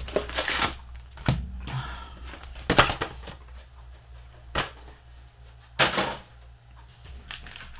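Trading-card box and pack packaging being handled and opened: scattered taps, clicks and crinkly rustles, loudest about three and six seconds in.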